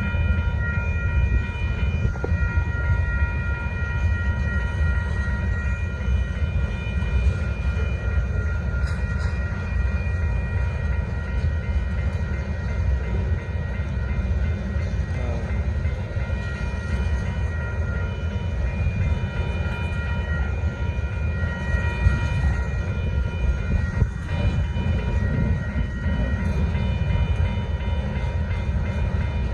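Union Pacific gravel freight train rolling past: a steady heavy rumble from the cars with a continuous thin high whine over it, and a few brief knocks along the way.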